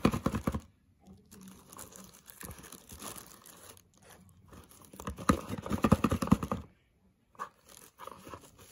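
Dog biting and tearing at the corner of a cardboard mailing box: rough ripping and crunching of cardboard in two bursts, a short one at the start and the loudest about five seconds in, with softer rustling between.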